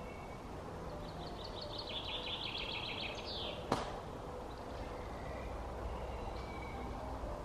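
Garden birdsong over a steady low background rumble: a songbird sings a fast trill of repeated high notes for about two seconds, ending in a quick falling flourish, with fainter short calls later on. A single sharp click sounds a little past halfway.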